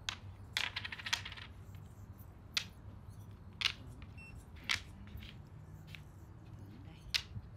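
Wooden xiangqi pieces clicking down onto the board as they are set out for a game: a quick run of clicks about half a second in, then single sharp clicks roughly a second apart.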